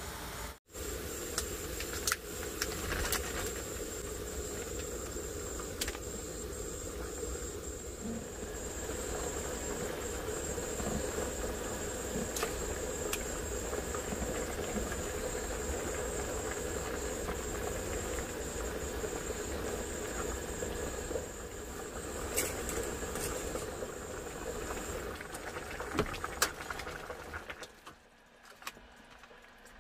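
A pot of broth at a rolling boil on a portable butane gas stove: the burner's steady flame hiss and rumble with bubbling, and a few light clicks of chopsticks against the pot. The sound falls away sharply near the end.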